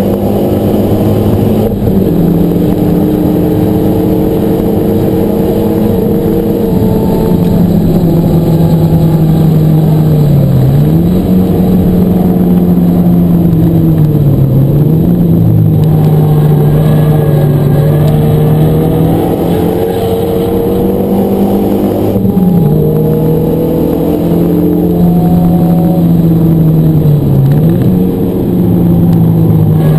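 Renault Megane RS250's turbocharged 2.0-litre four-cylinder engine heard from inside the cabin on track. It holds a steady drone that dips and climbs again four times as gears are changed.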